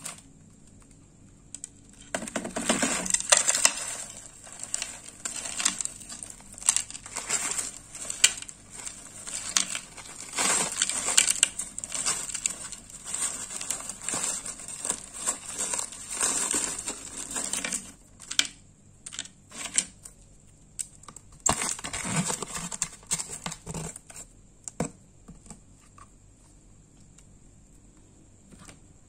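Crushed ice being handled and heaped by hand, crunching and clinking in a dense irregular run of crackles from about two seconds in until past the middle, then a few scattered bursts and a quieter stretch near the end.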